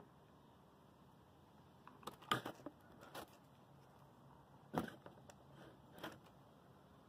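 Double-access gravity latch on a vinyl fence gate clicking and rattling as it is released and the gate swung open, then a single sharp clack near the five-second mark as the keeper arm drops into the latch and the gate closes, followed by a few lighter clicks.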